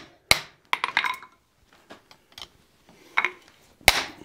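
Hand hammer striking a steel drift driven through the hot eye of a forged bottle opener on the anvil, opening the hole up round. One sharp strike comes just after the start, then lighter metal clinks and a few faint taps, then two more strikes near the end.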